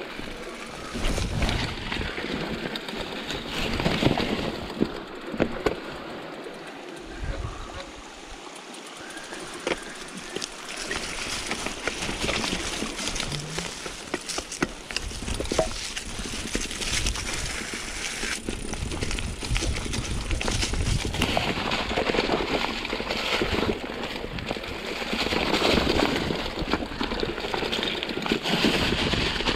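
Mountain bike rolling fast down a rough trail: a continuous rush of tyre and wind noise, with frequent clatters and knocks as the bike runs over stones and roots.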